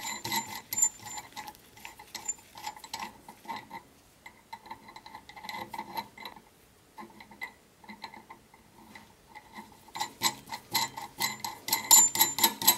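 Steel jam nut being turned by hand along the threaded brake chamber push rod, chasing the threads clean after the rod was cut: rapid metallic clicking and ticking with a light ring. The clicks thin out in the middle and come thick again near the end.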